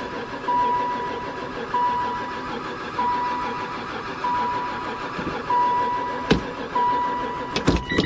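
An old van's starter cranking the engine after years of sitting, while a dashboard warning chime dings about once every second and a quarter. The cranking stops near the end with a couple of clicks; the chime keeps going.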